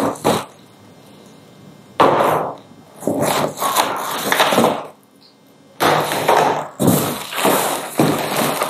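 Unpacking plastic-bagged parts of a toddler toilet-trainer seat from a cardboard box: crinkling plastic and scraping, rustling cardboard, with a sharp knock about two seconds in.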